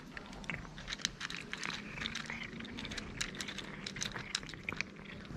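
Two cats eating dry kibble from plastic bowls: quick, irregular crunching and clicking, several crunches a second.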